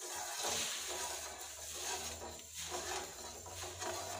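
A spoon stirring sugar and water in a steel saucepan, scraping the undissolved granules against the bottom of the pan as the sugar syrup is started.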